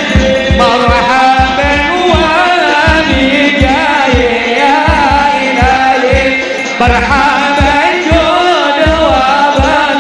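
A melismatic Arabic devotional song (sholawat) sung by male voices over a steady, regular drum beat.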